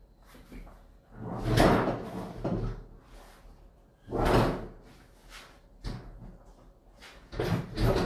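Compartments of a Hotpoint XEX95T fridge freezer being worked open and shut, heard as three separate rattling, sliding bursts a few seconds apart.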